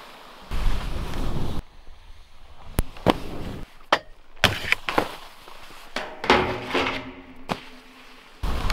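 Freestyle skis scraping over hard-packed spring snow, with several sharp clacks and short scrapes as they land on and slide along snowpark rails and a tube.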